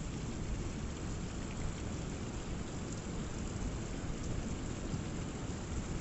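Rainwater running down a rock cliff face after a heavy storm, over the steady low rush of a rough sea.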